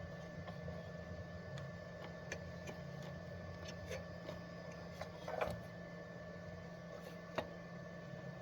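Faint steady electrical hum with a thin constant whine over it, and scattered light clicks and taps. The two sharpest clicks come about five and a half and seven and a half seconds in.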